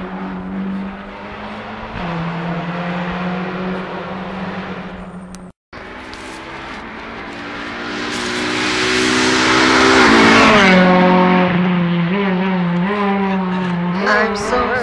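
Rally car engine at full throttle, held at a steady note for about five seconds, then growing louder and passing close by around ten seconds in, its pitch stepping through gear changes as it accelerates away. The sound cuts out completely for a moment just after five seconds in.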